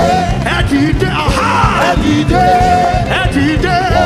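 Live gospel praise music with a steady beat, and a held, wavering vocal or keyboard line over it.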